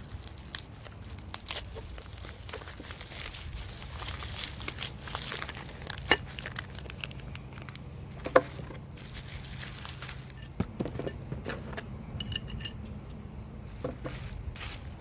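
Small metal parts of a blade sharpener's hardware kit and mounting bracket clinking and knocking as they are handled and set down, in scattered light clicks with a brief run of ringing clinks near the end.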